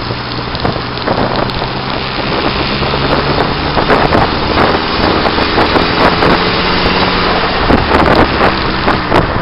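Wind buffeting a camera microphone mounted on the outside of a moving car, over tyre and road noise and the steady low hum of the car's turbocharged Nissan SR20 engine at cruise. It grows a little louder about three seconds in.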